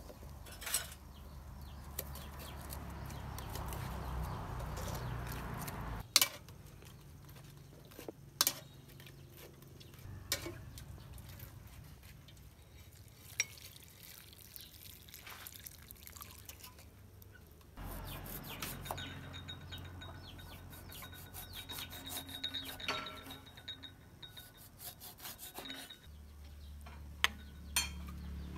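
Food-preparation handling sounds: liquid swished and strained in a metal cooking pot and through a wire-mesh sieve, with a few sharp knocks of utensils against the vessels.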